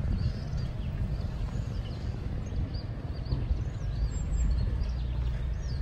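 Wind buffeting the microphone in an uneven low rumble, with small birds giving short high chirps over it, several in a cluster about three seconds in.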